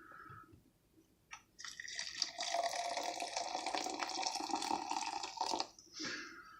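Water poured into a glass cup for about four seconds, then stopping, to make instant coffee. A light tap on the glass comes just before the pour.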